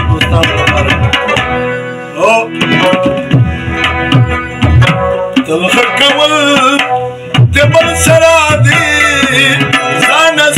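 Live Pashto folk music: harmoniums play sustained chords and melody over steady tabla drumming. A man's singing voice comes in over them in the second half.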